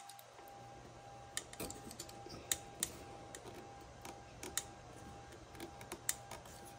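Light, scattered clicks and taps of hands handling the wires and connectors at the relay on a MIG welder's control board, inside its sheet-metal case.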